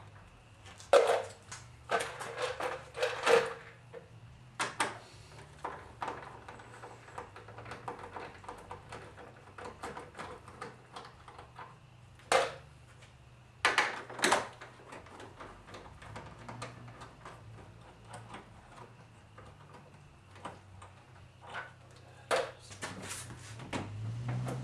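Hand tools and loose car parts clicking and knocking: scattered sharp clanks, a few with a short ring, and stretches of light ticking in between.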